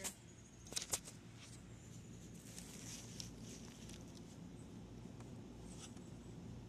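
Light handling knocks, two close together about a second in, then a faint steady background hush.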